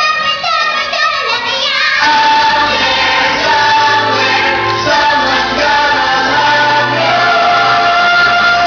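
Children singing a musical-theatre song with instrumental accompaniment, moving through a quick melody and then holding long notes from about two seconds in.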